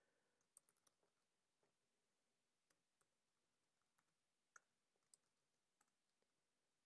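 Very faint, irregular clicks of computer keyboard keys being typed on, a dozen or so scattered keystrokes against near silence.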